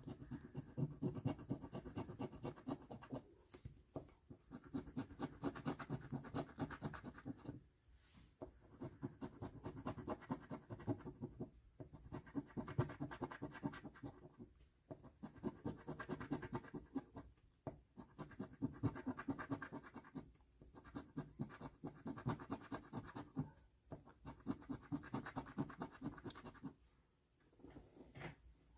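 A scratch-off lottery ticket being scratched: rapid back-and-forth scraping strokes in passes of two to three seconds, with short pauses between passes as each area is uncovered.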